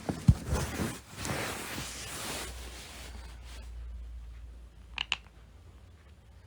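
Sleep teeth grinding (bruxism): a scratchy grinding of teeth for about two seconds after a few low thumps at the start, then two quick clicks of the teeth about five seconds in.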